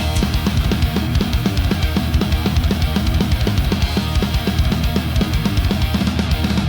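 Heavy metal music: fast, steady drumming, about six or seven kicks a second, under guitar, with no vocals.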